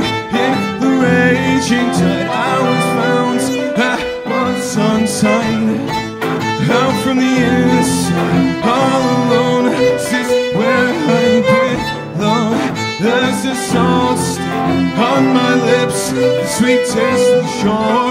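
Violins and a cello playing together in an instrumental passage, the bowed strings carrying a flowing melody over held lower notes.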